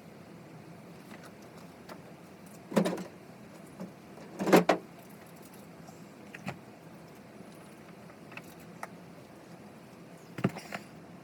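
A few short knocks and clatters of things being handled: two sharp hits about three and four and a half seconds in, the second the loudest and doubled, then lighter taps, and another clatter near the end.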